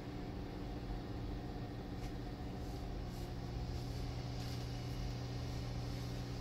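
Running noise of the Sunrise Izumo, a 285 series electric sleeper train, heard inside a compartment: a steady hum with a constant low drone, with a few faint clicks.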